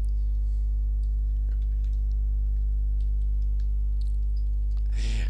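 Steady electrical mains hum with a stack of overtones, with faint scattered clicks of a computer keyboard and mouse as text is edited.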